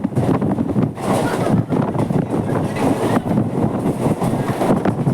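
Mumbai suburban electric local train running along the track: a continuous rumble with rapid rattling and clatter of the coaches and wheels, mixed with some wind noise.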